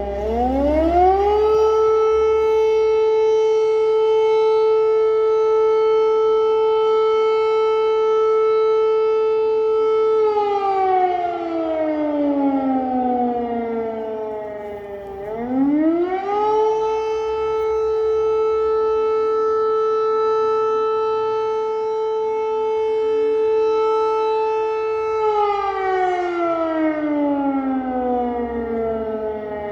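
Civil-defence air raid siren wailing: its pitch rises, holds a steady tone for about nine seconds, then slides slowly down, and the cycle repeats, starting again near the middle and once more at the end.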